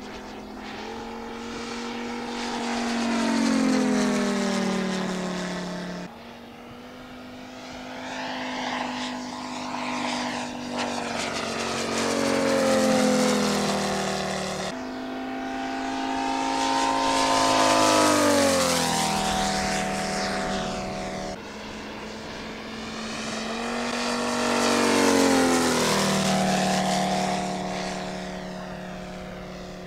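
Large-scale radio-controlled Yak-11 scale model with a radial engine making four fly-bys: each time the engine note swells and then drops in pitch as the plane passes. The passes are joined by sudden cuts.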